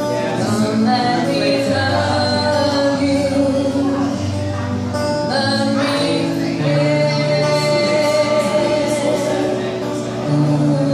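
Music: a song with singing over sustained bass notes that change every second or two.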